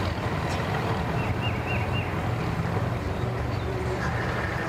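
Boat engine idling with a steady low hum as the boat moves slowly through the water, with wind on the microphone.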